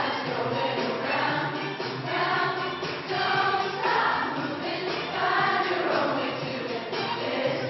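Large choir of teenage girls singing.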